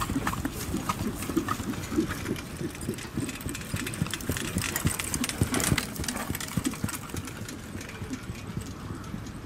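Hooves of harness trotters pulling sulkies thudding on grass turf in a quick, uneven patter. It is loudest about five to six seconds in.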